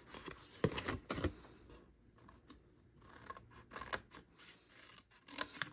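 Paper snips cutting green cardstock: a handful of short, separate snips as the blades close through the card along its score lines.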